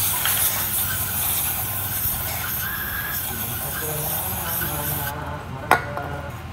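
Aerosol brake cleaner spraying in one steady hiss for about five seconds, flushing old dried grease from a scooter's front wheel bearing; it stops abruptly, and a single sharp click follows near the end.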